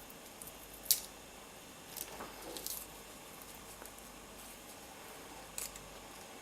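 A few small, sharp clicks and handling noises over a steady faint hiss, the loudest about a second in.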